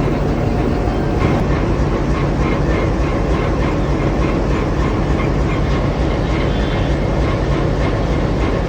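Train moving on the track, its wheels clicking over rail joints in a steady rhythm that starts about a second in, over a continuous low engine hum.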